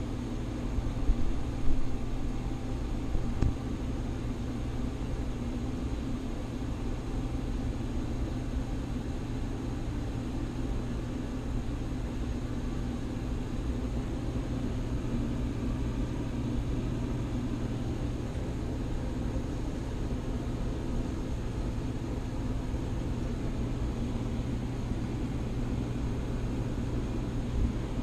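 Indoor air handler running with a steady hum and drone, with a few light knocks in the first few seconds.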